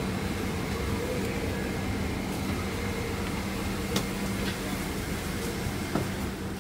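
Steady hum and rush of an airliner cabin's air-conditioning, with two sharp clicks about four and six seconds in.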